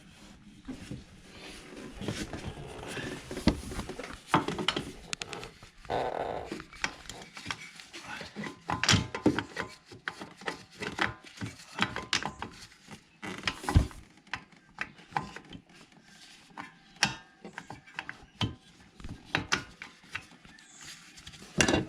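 Irregular knocks, clunks and scraping of a starter motor being handled and worked into its mounting on an ATV engine.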